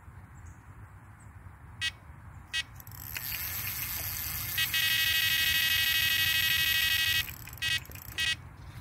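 Electronic carp bite alarm sounding a run: a couple of single beeps, then one continuous tone for about two and a half seconds as line is pulled off the rod, then two more beeps. A fish has taken the bait.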